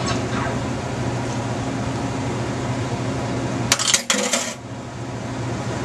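A metal fork clinking and scraping against a plate several times in quick succession, about four seconds in, over a steady background hum.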